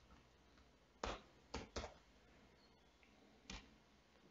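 A few separate keystrokes on a computer keyboard: four short clicks, three close together around the first two seconds and one more near the end, with near silence between.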